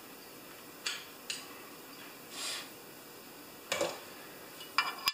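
A few scattered light clicks and clinks of small metal parts being handled on a workbench, with a soft rustle about halfway through.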